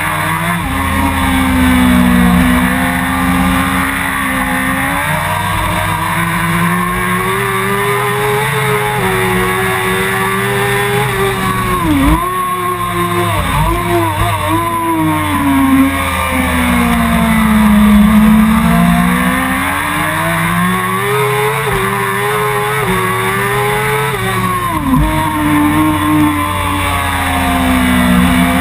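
Suzuki GSX-R 1000's inline-four engine at high revs, heard from onboard the motorcycle on a fast lap. The pitch rises and falls in long sweeps with the throttle, with a run of quick sharp drops and blips about halfway through and another near the end, as the rider shifts down for corners.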